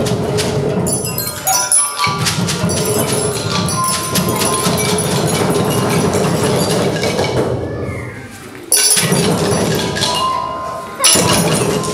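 A children's percussion ensemble playing xylophones and metallophones with mallets, with knocking mixed in: a dense ringing clatter that dies away after about eight seconds, then comes back in all together, suddenly, twice, on the conductor's cues.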